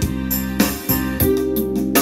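Korg Pa800 arranger keyboard playing a factory rhythm style: drum hits over sustained keyboard chords, with a new held note coming in about halfway through. It plays cleanly, without the distorted, cutting-out playback it had before its repair.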